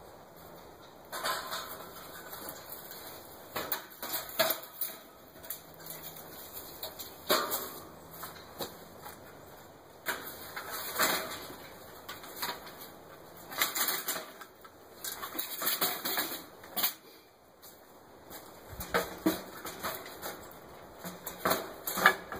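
Metal mesh screen sections of a homemade diamond trommel clinking and clanking irregularly as they are handled and fitted together on the frame, with the loudest clank near the end.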